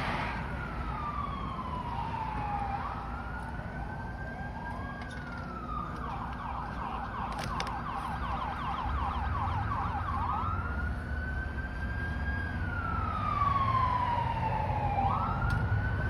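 Police car siren sounding: a slow rising and falling wail switches to a fast yelp for about five seconds, then returns to the slow wail. Vehicle rumble runs underneath.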